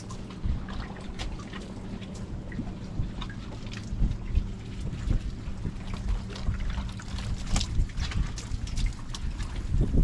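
Water trickling and splashing as outboard motors are washed down, with scattered clicks and drips, under a steady low hum. Wind buffets the microphone.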